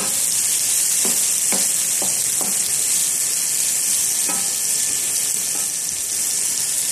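Sitaw (yardlong beans) sizzling as they stir-fry in a nonstick frying pan, with a steady hiss. A wooden spatula stirs them, knocking against the pan several times.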